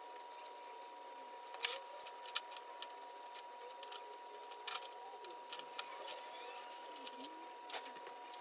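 Potting soil, roots and small rocks scraping and clicking as a large plant's root ball is worked out of a pot lying on its side, with soil spilling onto the table. The sound is irregular small clicks and crackles.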